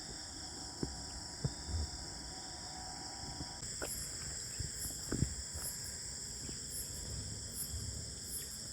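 Night insect chorus of crickets: steady high-pitched trilling, with a louder, pulsing high buzz joining about three and a half seconds in. A few faint knocks sound under it.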